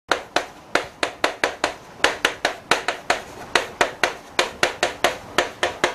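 Chalk tapping and knocking on a chalkboard as characters are written, a quick run of sharp clicks about four or five a second.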